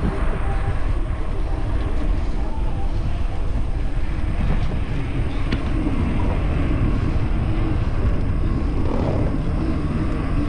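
Steady wind rumble buffeting the microphone of a camera on a moving bicycle.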